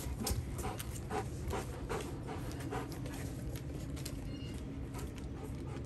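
A Rottweiler panting, quick breaths about two to three a second that thin out after about three seconds.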